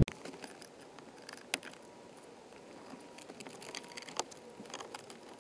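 Faint scattered clicks and taps from a screwdriver and hands working on a car's handbrake lever, with a sharper click about a second and a half in and another near four seconds, over low hiss.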